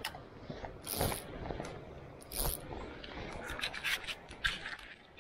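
Scraping and rubbing noises in a few short bursts, the loudest about a second in and at about two and a half seconds, then a quick run of brief scratches near the end.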